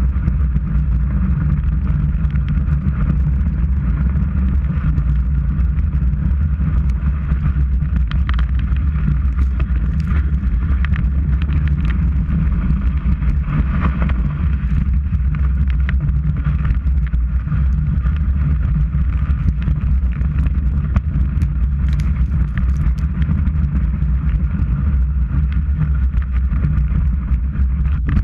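Skis running over packed snow, heard through a boot-mounted GoPro: a steady, loud rumble and scrape carried up through the ski boot, with occasional sharp clicks.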